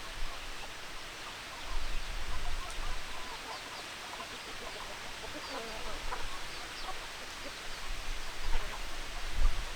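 Several chickens clucking, with many short calls overlapping one another. Low rumbles come about two seconds in and again near the end.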